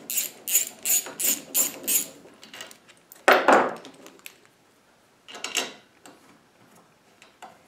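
Quick, even clicking, about four a second, of a ratcheting hex driver turning socket head flathead screws into a steel bracket; it stops about two seconds in. A short scrape follows, then a softer handling noise.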